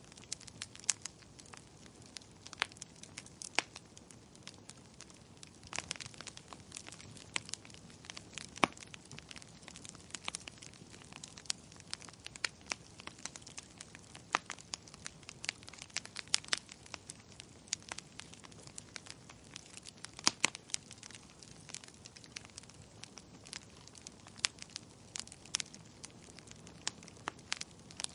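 Wood fire burning in a fireplace: a steady low hiss with frequent sharp, irregular crackles and pops, some of them loud.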